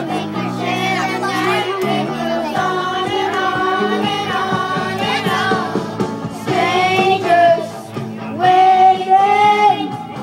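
Karaoke: a child singing into a microphone over a backing track, with more voices joining and the singing growing louder in the second half.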